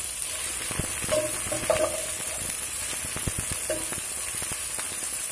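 Chopped onions sizzling in hot oil in a non-stick pan, stirred with a spatula that scrapes and taps against the pan, loudest about a second and a half in.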